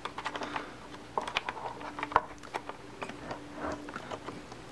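Scattered light clicks and taps from a Spektrum DX8 RC transmitter being handled and turned over in the hands.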